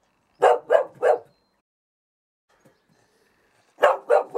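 A blue roan cocker spaniel barks at the camera, wary of it: three quick barks, a pause of about two and a half seconds, then three more near the end.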